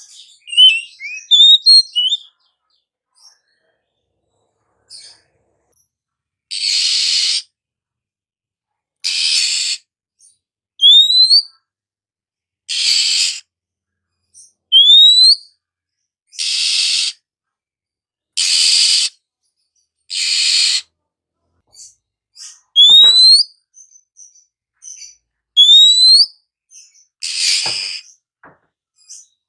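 Oriental magpie-robin (kacer) singing: a quick twittering jumble, then clear rising whistles alternating with harsh, scratchy calls, about one every second or two.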